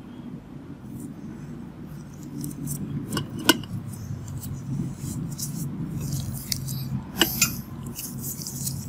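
Scattered small clicks and rustles from hands handling swabs and tools, over a steady low hum, with two sharper clicks, one about three and a half seconds in and one near seven seconds.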